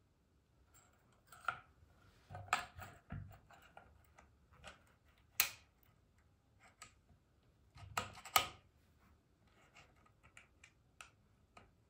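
Metal parts of a Gevarm .22 LR carbine being handled and fitted together by hand: a series of sharp clicks and light clatter, loudest about two and a half, five and a half and eight seconds in.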